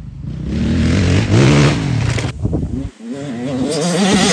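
Dirt bike engine accelerating through a turn: the revs climb, drop back about two seconds in, then climb again as the bike comes closer.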